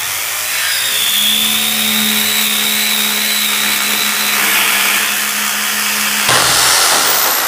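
Corded electric drill driving a reciprocating saw attachment, its blade sawing through a piece of metal: a steady motor hum and whine under the rasp of the blade on metal. The tone changes about six seconds in, and the sound stops abruptly at the end.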